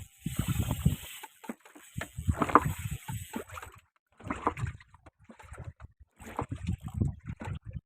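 Water sloshing and slapping against the hull of a small fishing boat in irregular bursts.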